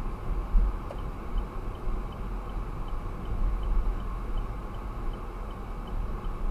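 Low rumble of a car's road and engine noise heard inside the cabin, with a turn-signal indicator ticking evenly about three times a second from about a second in.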